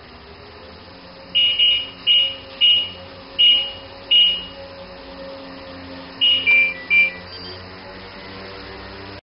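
Front-loading washing machine's control panel beeping as its program dial is turned and buttons pressed: six single high beeps in the first few seconds, then a quick run of four beeps at two pitches about six seconds in.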